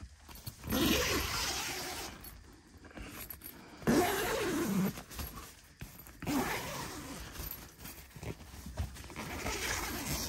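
Tent zipper being pulled in three runs of about a second each. Its rasp glides up and down in pitch as the pull speeds and slows, and the middle run stops abruptly.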